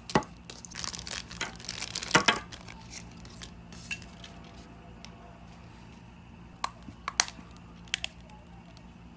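Thin plastic sealing film crinkling and tearing as it is peeled off a small capsule-toy figure, dense for the first few seconds, followed by a few sharp clicks of small plastic parts.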